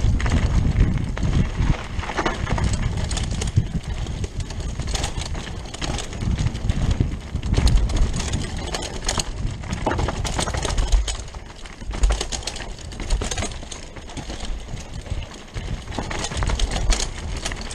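Rockrider 540 ST mountain bike descending a dirt forest trail at speed: wind rushing over the microphone and tyres rolling on dirt make a loud, uneven rumble, with frequent clicks and rattles from the bike as it bounces over roots and bumps.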